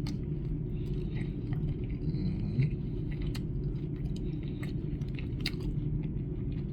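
Close-up chewing of barbecue ribs: wet mouth clicks and smacks over a steady low background hum.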